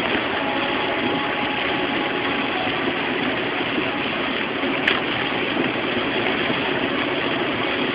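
Steady noise heard inside a car driving through heavy rain: rain on the windshield and body and tyres on the wet road, with a short click about five seconds in.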